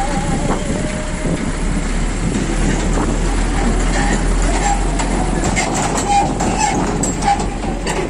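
A vehicle engine running with a steady low rumble, with scattered clicks and faint voices over it.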